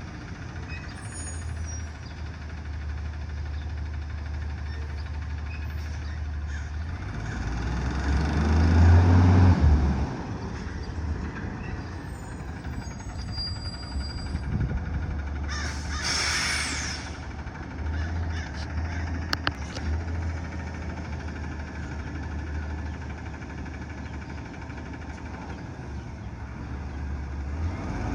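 Heavy truck's diesel engine running steadily, swelling to a loud rev about a third of the way in, then settling back. Past the middle comes a short burst of air hiss, like an air brake releasing.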